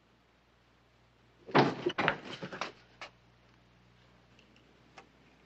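A door being opened and shut: a quick cluster of knocks and rattles lasting about a second, then a single click, and a fainter click about two seconds later.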